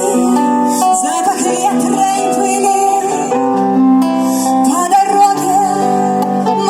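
Live pop song in an instrumental passage: guitar chords under a wavering lead melody line, with no words sung.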